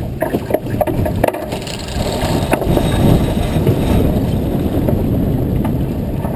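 Wind buffeting the microphone and water rushing along the hull of a racing sailboat under way. There are a few sharp clicks and knocks in the first second and a half.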